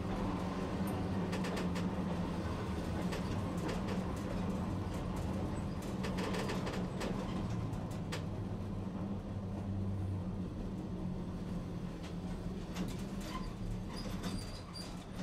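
Tosaden streetcar running, heard from inside the car: a steady low hum with scattered clicks and rattles.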